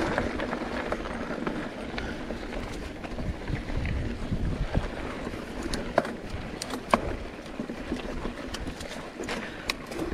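Mountain bike rolling over a dirt trail: steady tyre and wind noise on the camera, with scattered clicks and rattles from the bike over bumps.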